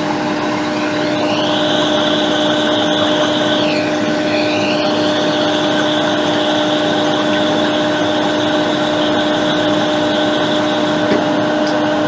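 Steady whirring of a fan with a constant low hum. A higher hiss shifts in pitch between about one and four seconds in, then holds steady.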